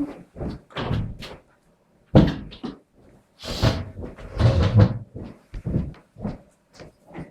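A string of knocks, thumps and clatter like cupboard doors and drawers opening and closing while someone rummages through them, with one sharp thump about two seconds in and a longer stretch of rustling and scraping in the middle.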